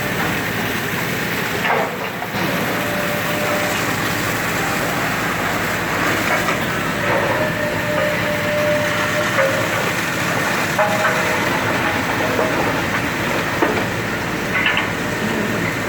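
Demolition machinery working on a building: a steady loud rumble and clatter with several short metallic squeals.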